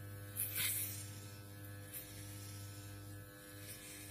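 Corded electric hair clippers buzzing steadily as they are run over a short-cropped scalp, with a short scratchy noise about half a second in.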